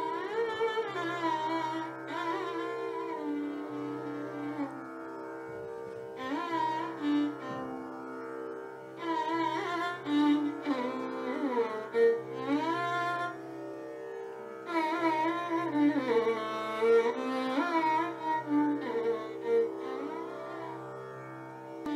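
Background instrumental music: a melody of sliding, bending notes over a steady drone.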